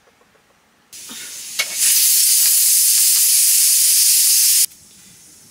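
Loud, steady hiss from cooking, as of steam or hot fat in a pot. It starts about a second in, swells to full strength just before two seconds, and cuts off sharply near the end.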